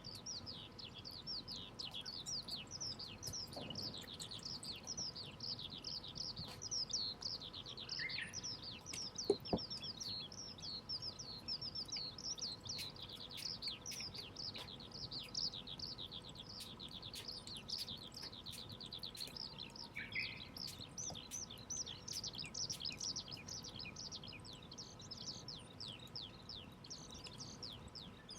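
A chorus of small birds chirping rapidly and without pause, with a few lower, falling calls now and then. A faint crackle of the wood fire comes through, and one sharp pop about nine seconds in.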